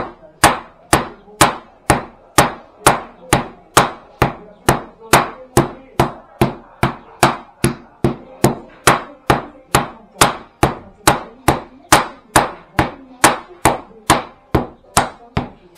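Wooden rolling pin beating down on a sheet of pastry dough on a table: steady thwacks at about two a second, each blow pressing a new groove into the dough. This is the repeated beating of pâte à tourtière landaise, worked in turns.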